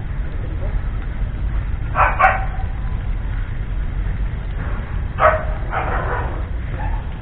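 A dog barking twice, each time a quick pair of barks, about three seconds apart, over a steady low rumble.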